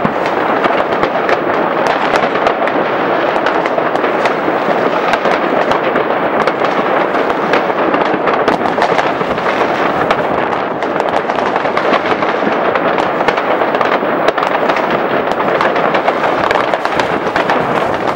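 A mass of fireworks and firecrackers going off all at once: a continuous, dense crackle of overlapping bangs and pops with no pause.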